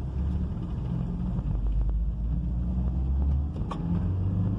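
Audi A3 driving slowly, heard from inside the cabin: a steady low engine hum and road rumble, the note shifting up a little about three and a half seconds in. No metal-on-metal creaking from the front left suspension, now that a stripped control-arm bolt has been replaced.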